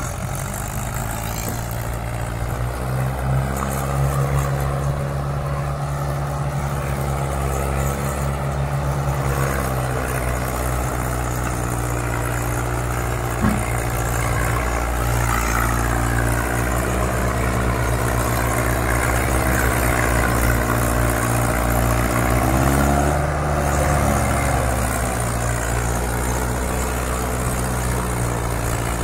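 Tractor diesel engine running hard under load, its pitch dipping and recovering a few times, with a single sharp knock about thirteen seconds in.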